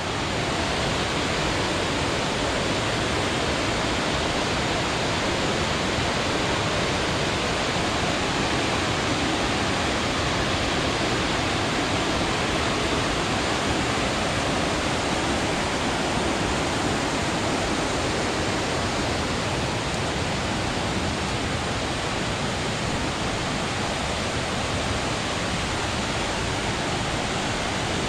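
River running high and fast over rocky rapids: a steady, loud rush of water.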